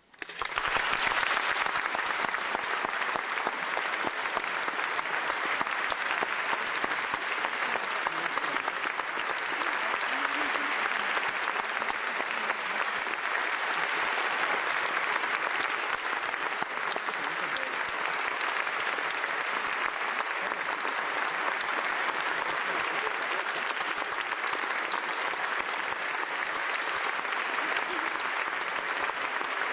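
Audience applauding: many hands clapping, breaking out suddenly and holding steady.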